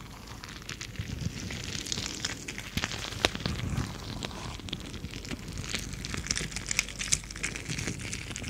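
Bead-filled stress balls being squeezed and rubbed in the hands, giving a dense, continuous crackling of many small clicks.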